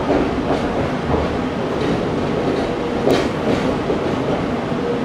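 Meitetsu 6000 series electric train running, heard from inside the carriage: a steady rumble of wheels on track with a few sharp clacks, the loudest about three seconds in.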